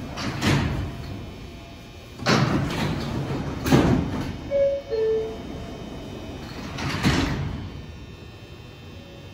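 New York subway car doors on an R142-series train sliding and banging shut several times. About halfway through comes the two-note falling door chime.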